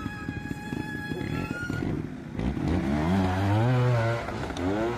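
Trials motorcycle engine revving: it rises in pitch about two and a half seconds in and holds for over a second, then revs briefly again near the end.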